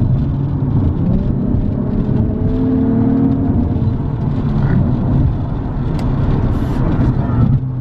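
Car engine and tyre noise heard from inside a moving car's cabin, steady and loud, with the engine note rising and then easing off about halfway through.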